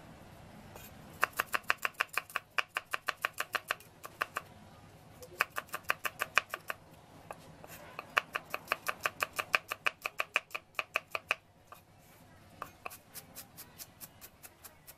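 Cleaver slicing garlic cloves on a wooden chopping block: quick, even knocks of the blade on the board, about five a second, in three runs, with lighter, softer strokes near the end.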